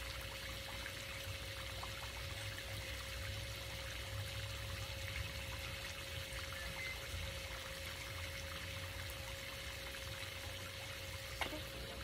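Steady splash of a swimming pool's water jet arcing into the pool, with a steady hum under it and a short click near the end.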